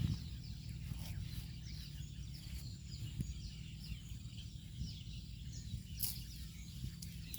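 Small birds chirping again and again in short high calls over a steady low rumble, with a single sharp click about six seconds in.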